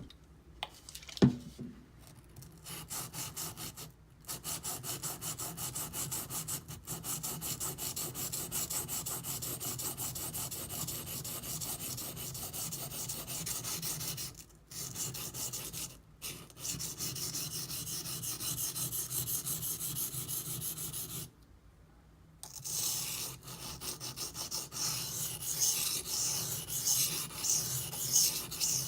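D2 steel knife blade of a Benchmade Griptilian rasping in rapid back-and-forth strokes on a sharpening stone, in long runs with brief pauses, while the edge is ground toward a burr. A single sharp knock comes about a second in.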